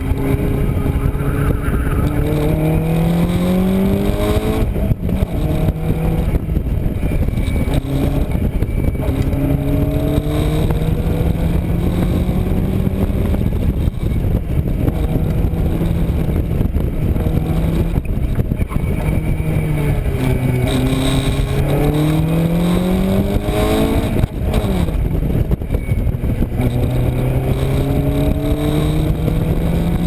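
Locost (Lotus Seven-style) kit car's engine, heard from the open cockpit at speed. The revs climb and drop back again and again through the gears and corners, with a long dip and pick-up about two-thirds through. Wind rushes past the open cockpit.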